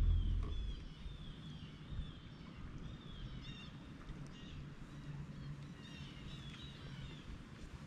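Birds calling, with repeated short chirping notes, over a faint low steady hum. A low rumble fades out within the first second.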